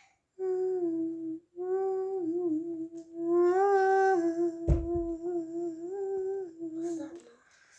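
A person humming one steady, slightly wavering note, with a short break for breath about a second in. A single low thump sounds a little after halfway.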